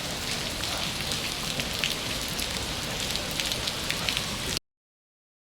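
Steady rain falling, with scattered sharp drop ticks. The sound cuts off abruptly about four and a half seconds in.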